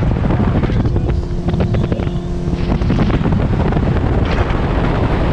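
Wind buffeting the microphone as a bass boat runs across the lake under outboard power. A steady motor hum shows through for a couple of seconds about a second in.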